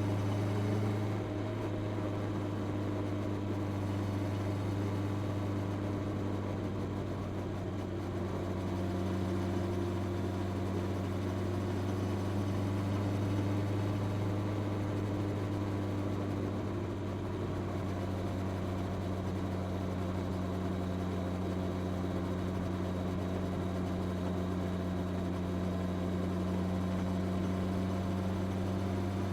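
Honda CB650R's inline four-cylinder engine with its stock exhaust, running steadily at an even engine speed under light throttle, its pitch drifting only slightly up and down.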